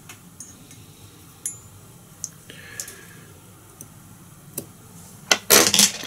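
Small metal fly-tying tools clicking and fine scissors snipping as leftover thread and material are trimmed from the hook, with a short scrape partway through and a quick run of louder sharp clicks near the end.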